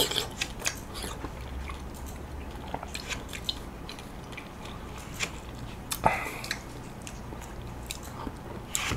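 Close-up mouth sounds of chewing soft, chilled golden kiwi flesh taken off a spoon: a run of small wet smacks and clicks, with one louder one about six seconds in.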